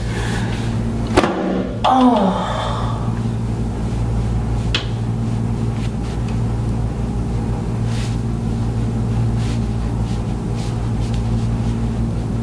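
A steady, loud mechanical hum from a running motor with a low buzz. A short falling moan about two seconds in.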